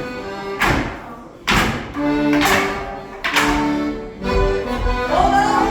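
Live Morris dance tune with held melody notes, broken by sharp percussive strikes from the dancers about once a second.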